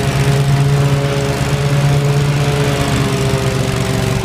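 Gravely riding mower's engine running at a steady speed as the mower drives across grass, an even hum with no change in pitch.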